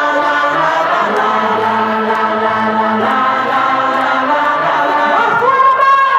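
Live pop concert music with singing, heard from the stands of an arena through a phone's microphone: sustained chords and voices without a heavy beat.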